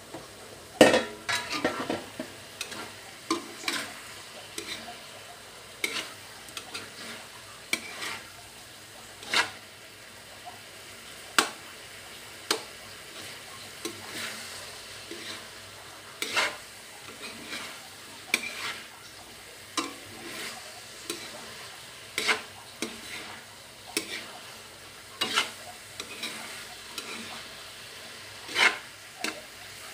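Metal spatula scraping and knocking against a wok while stir-frying diced potatoes and carrots, over a steady sizzle. The strokes come every second or two, with a louder metal clatter about a second in.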